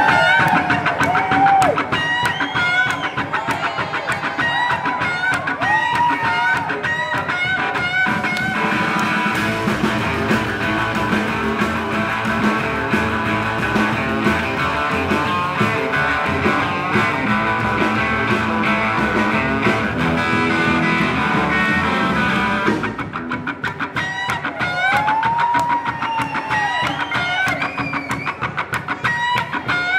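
Live rockabilly instrumental from an electric guitar, upright bass and drums. The Telecaster-style guitar plays a lead with string bends over a steady drum beat. From about nine seconds in to about twenty-three seconds the band plays a denser, fuller section, then the bent-note guitar lead returns.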